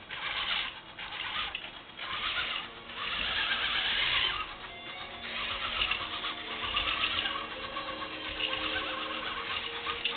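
Erector Spykee robot's tracked drive motors and gearboxes whining as the line-following program drives them, in four short bursts at first, then more steadily from about halfway.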